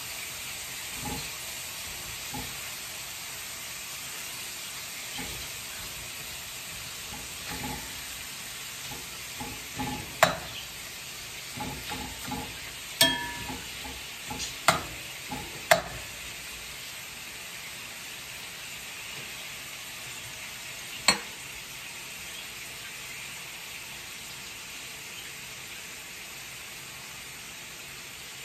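Beef slices sizzling steadily in a hot stainless steel skillet. Metal utensils clink sharply against the pan several times between about ten and sixteen seconds in, and once more a few seconds later.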